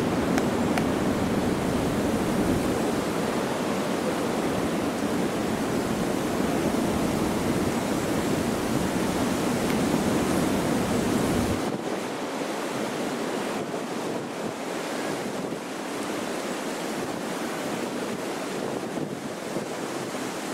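Strong gusting wind rushing over the microphone, a dense steady roar that drops abruptly to a lighter rush a little past halfway through.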